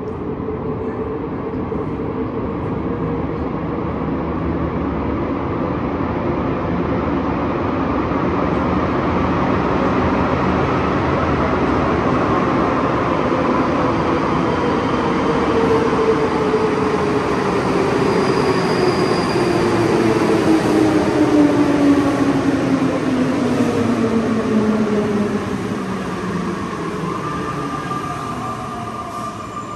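Subway train approaching through the tunnel and pulling into the station. The rumble builds to its loudest a few seconds before the train arrives, then eases off. A whine falls steadily in pitch as the train slows, and a higher thin tone joins near the end.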